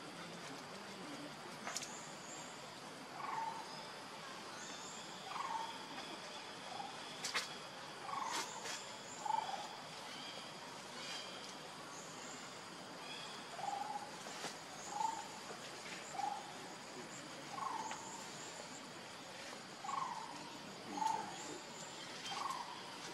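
Short animal calls repeating irregularly every second or two, over a faint steady high ringing, with a few sharp clicks.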